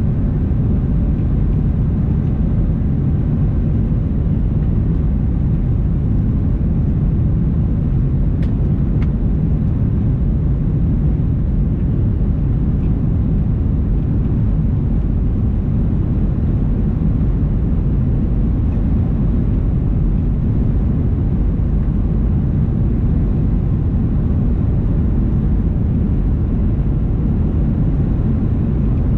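Steady low rumble of engine and rushing air inside the cabin of a Boeing 737-800 on final approach, heard from a window seat.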